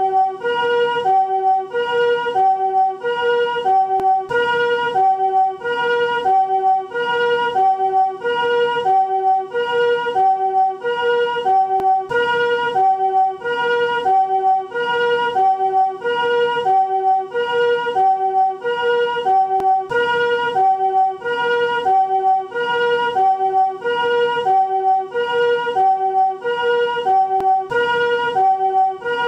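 Japanese ambulance siren in its newer chord (harmonic) version, several tones sounding together on each note. It alternates steadily between a high and a low note, the two-tone 'pii-poo' pattern, repeating evenly without a break.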